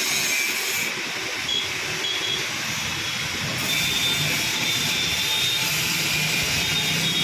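A steady, fairly loud hissing rush of noise, with a faint high whistle coming and going through it.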